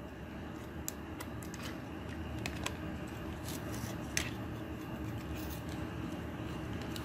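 Small plastic clicks and light rattling of a Transformers Studio Series Blitzwing action figure's joints and panels being moved by hand during its transformation, over a steady low background hum. The sharpest click comes about four seconds in.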